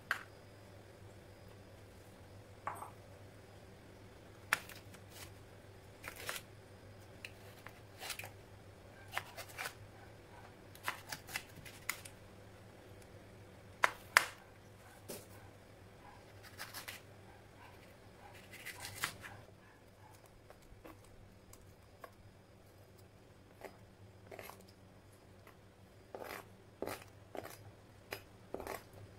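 Kitchen knife slicing red chilies on a plastic cutting board: short, sharp taps of the blade on the board at an irregular pace. Near the end, a quick cluster of taps as the chopped pieces are scraped off the board into a stone mortar.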